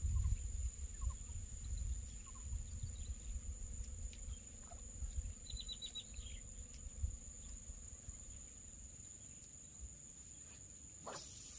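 Steady high-pitched drone of insects, such as crickets, over a low uneven rumble. A bird gives a quick run of about five chirps around the middle, and there is a short noisy rustle near the end.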